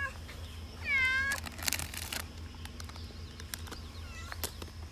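Domestic cat meowing: one clear meow about a second in, rising and then holding, and a fainter short meow near the end, with a few brief scratchy noises between them.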